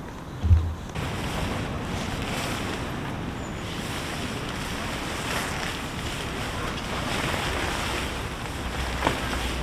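Nylon fabric of a pop-up tent rustling and swishing in swells as it is folded down, over a steady rush of rain and wind. A low thump about half a second in.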